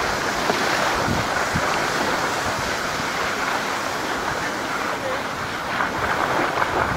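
Steady rushing noise of wind on the microphone and skis sliding over packed snow, from a camera carried downhill on a ski run.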